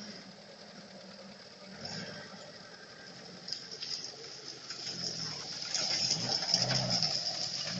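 UAZ-469 engine running, its note rising and falling several times over the second half as the revs go up and down.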